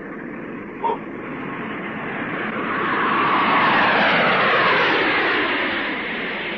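Cartoon sound effect of an airplane flying past: an engine rush that swells to a peak in the middle and fades away with falling pitch. A brief short tone sounds about a second in.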